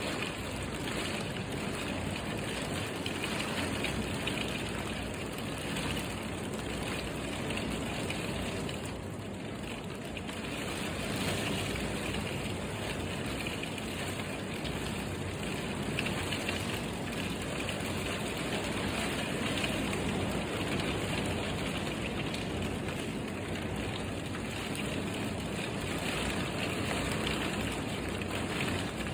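Steady downpour of rain falling on surfaces, an even hiss with no breaks.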